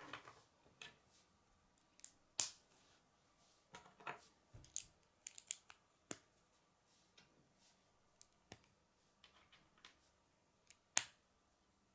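K'nex plastic connectors and rod clicking and snapping as the pieces are handled and pushed together: a string of irregular sharp clicks, the loudest about two and a half seconds in and near the end.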